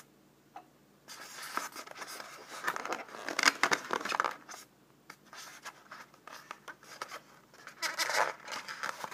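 Foam packaging rubbing and scraping as a model car is worked out of its expanded polystyrene insert, in a run of noisy bursts from about a second in to past four seconds and again near the end.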